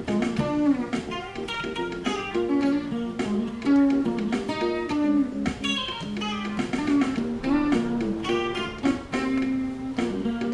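Fender Stratocaster electric guitar playing an improvised funk line of quick notes over a funk backing track.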